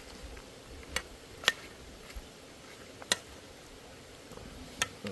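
Cooking utensils clicking against a cooking pot: four sharp, separate clicks, the loudest about a second and a half in, over a low steady background.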